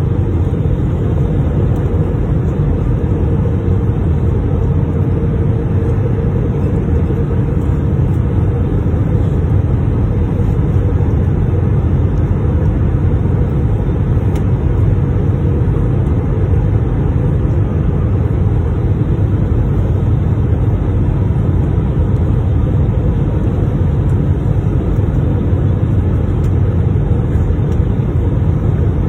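Steady low rumbling roar of a passenger airliner landing, with a faint steady tone that fades out about nine seconds in.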